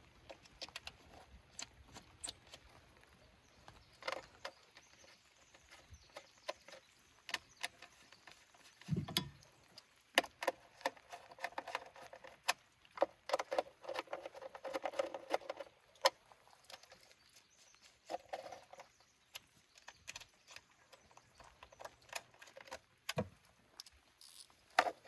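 Scattered clicks, taps and knocks of hand tools and parts being handled in a car's engine bay, with a busier stretch of clattering in the middle and a dull thump about nine seconds in.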